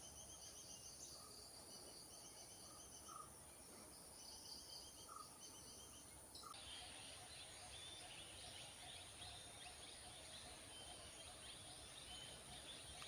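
Faint forest ambience: rows of rapid, repeated chirps over a steady high whine. The background changes abruptly about six and a half seconds in to a denser, even chirring.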